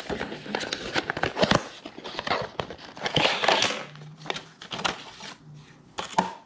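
A small cardboard box being opened by hand: paper and card rustling and crinkling as the inserts and paper cards are slid out, with many short sharp clicks and taps as pieces are handled and set down.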